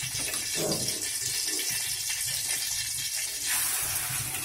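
Steady hiss from an aluminium karai heating oil on a gas burner. It grows louder near the end as boiled cabbage and beef go into the hot oil.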